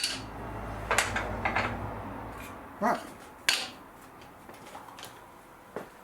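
Table saw motor winding down after being switched off, its low hum dying away over the first two seconds or so. Meanwhile cut timber pieces are handled on the saw table, with several sharp wooden knocks and clatters.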